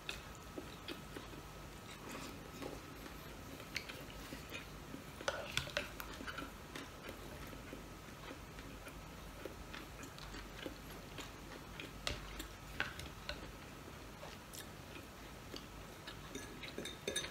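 A person chewing food close to the microphone while eating by hand, with scattered small clicks and taps of utensils and dishes. The taps are a little louder about five seconds in and again around twelve seconds.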